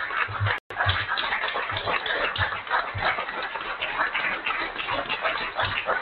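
Audience applauding, a dense steady patter of many hands clapping, with the sound cutting out for an instant about half a second in.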